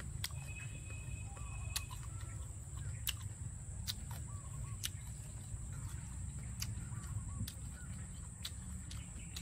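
A person chewing crisp green mango, with sharp crunches at irregular intervals of about one to two seconds. Birds call in the background over a steady high-pitched drone.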